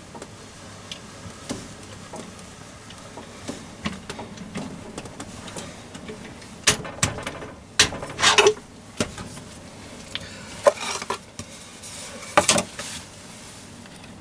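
Three-jaw chuck on a Myford lathe being worked by hand with its chuck key, no motor running: faint ticks at first, then clusters of sharp metal clicks and clanks about seven to eight and a half seconds in and again around eleven to twelve and a half seconds in.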